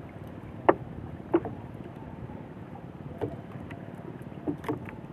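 A few sharp knocks and taps at irregular intervals on a small fishing boat as a handline catch and gear are handled, over a steady wash of wind and water.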